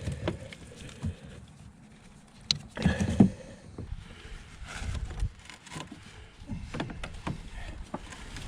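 Scattered knocks and clunks of parts being handled while a vehicle is stripped, with a louder cluster of thuds about three seconds in.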